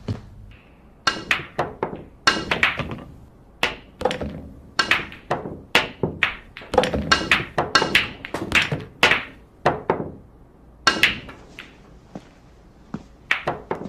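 Billiard balls clacking: the cue striking the ball and the balls knocking together, a long irregular series of sharp clicks, often several a second.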